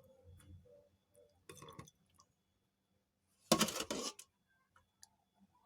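Hot ginger and lemongrass brew being strained from a pot into a glass: faint pouring and dripping, with a short louder clatter of kitchenware about a second and a half in and a louder one about three and a half seconds in.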